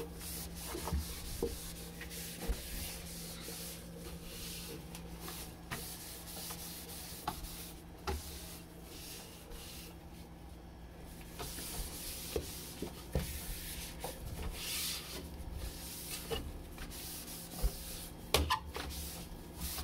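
Wiping and scrubbing the inside of a refrigerator by hand, an uneven rubbing with scattered light knocks, over a steady low hum.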